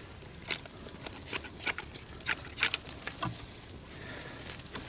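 Small campfire crackling: irregular sharp pops and ticks from the burning wood, about two or three a second, over a low hiss.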